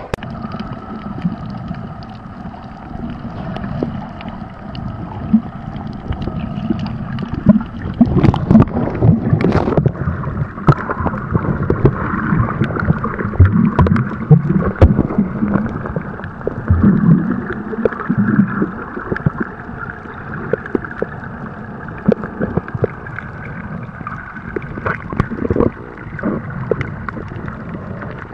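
Water noise picked up by a camera held underwater: a continuous muffled, gurgling wash with many small clicks and crackles through it and a faint steady hum underneath.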